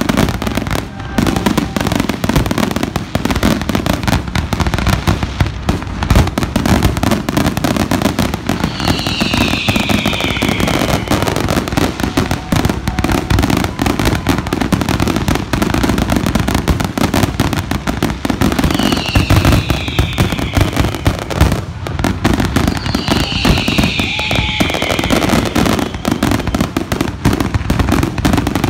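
Fireworks finale barrage: aerial shells bursting in quick, overlapping succession, a dense unbroken string of booms and cracks. Three times a high falling whistle sounds over it, each lasting about two seconds.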